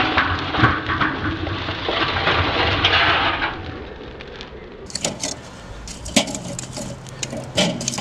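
Glowing charcoal poured out of a chimney starter onto a kettle grill's charcoal grate: a crackling rush of tumbling coals and sparks for about three and a half seconds. Later come several sharp clinks as metal tongs knock the coals into place.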